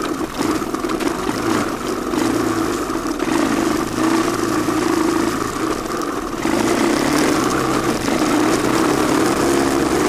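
Honda ATC185S three-wheeler's single-cylinder four-stroke engine running while the machine is ridden, its pitch shifting a little with the throttle and getting louder about six and a half seconds in.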